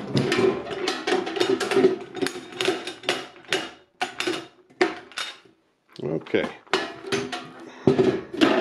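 Metal clanks and rattles of a steel USGI ammo can as its hinged lid is worked off and handled: a rapid run of sharp knocks, broken by a short quiet gap about five and a half seconds in.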